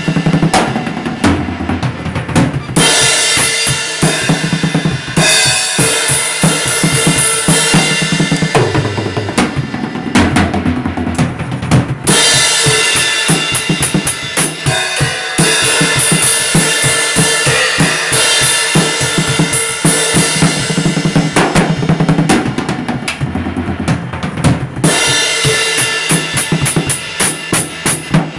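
Music driven by a drum kit, with bass drum, snare and cymbal hits over sustained pitched instruments, briefly thinning out a few times.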